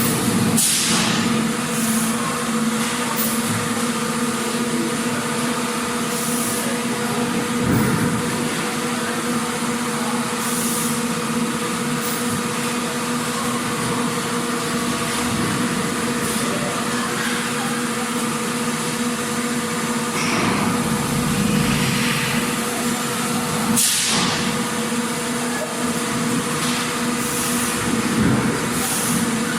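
Factory machinery ambience: a steady mechanical hum with a constant drone, overlaid with a few short hisses and occasional knocks.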